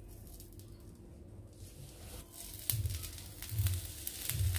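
Oiled whole aubergines starting to sizzle on a hot electric grill plate: a faint hiss with scattered crackles sets in about two seconds in. Three soft low thumps come from the aubergines being handled and set down on the plate.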